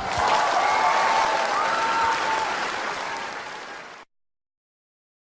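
Crowd applause with some cheering, a canned sound effect that fades and then cuts off abruptly about four seconds in.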